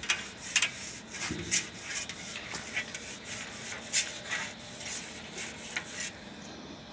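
Hand work on bicycle parts: irregular light metal clicks and taps over a rubbing, scraping sound.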